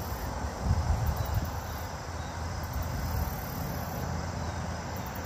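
High-pitched insect trilling that comes and goes in stretches of about a second, over a steady low rumble that swells briefly about a second in.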